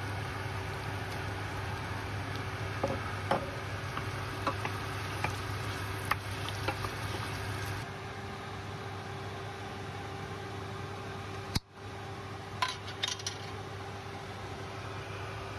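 Raw diced chicken tipped into a stainless steel pot of softened onions and stirred with a wooden spoon: light sizzling with scattered knocks of the spoon against the pot, over a steady hum. A short cluster of clicks near the end as a glass jar of cooking sauce is handled.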